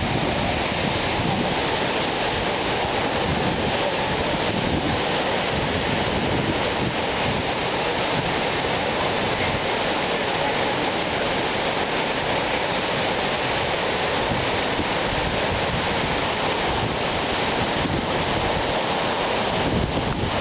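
Victoria Falls: a steady, unbroken rush of falling water.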